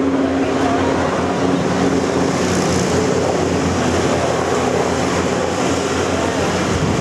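Steady engine drone with a low hum over open water, from the rescue demonstration's craft: the inshore lifeboat's outboards and the rescue helicopter that lifts the winchman.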